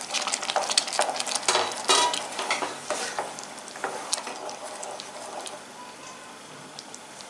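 Wooden spatula stirring sausage pieces through a boiling tomato sauce in a pan, with scrapes and light knocks against the pan over the first few seconds, then a softer steady bubbling hiss of the sauce.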